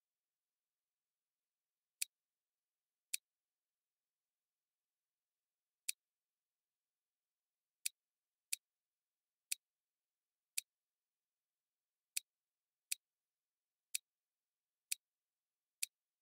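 About a dozen short, sharp single clicks at uneven intervals, from mouse clicks while stepping through and turning a model in a LEGO Digital Designer building guide, with dead silence between them.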